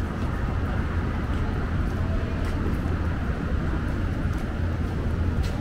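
Steady city-street ambience in a busy night alley: an even low rumble with faint voices of passers-by.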